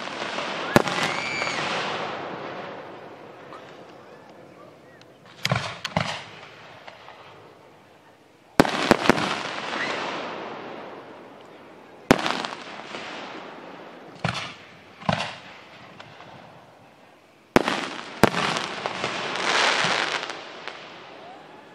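Aerial firework shells bursting: about ten sharp bangs, several in quick pairs, each followed by a crackle that fades away over a few seconds.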